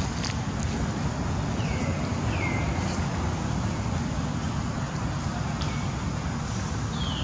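Steady low outdoor rumble, like wind or distant traffic, with a few short high calls that slide down in pitch: two close together about two seconds in and one more near the end.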